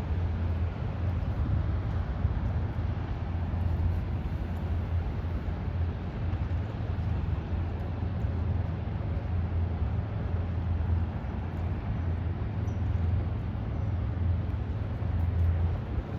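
Steady low drone of a passing bulk carrier's engine, with a constant wash of noise over it.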